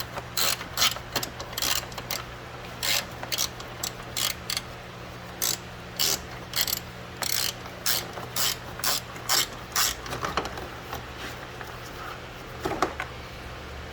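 Hand ratchet with a 10 mm socket clicking in short, repeated bursts as the air-intake bolts are loosened.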